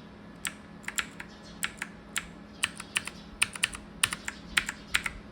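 Clicky blue mechanical switches of an ANT Esports MK3400 Pro V3 keyboard being typed on: about twenty sharp key clicks in an uneven rhythm, starting about half a second in, over a faint steady hum.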